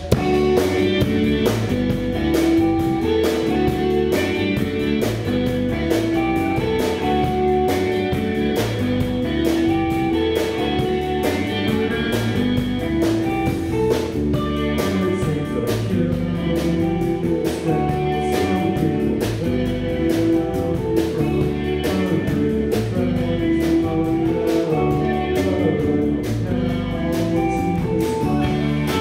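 Live rock band playing an electric-guitar instrumental with drum kit, all coming in together abruptly at the start.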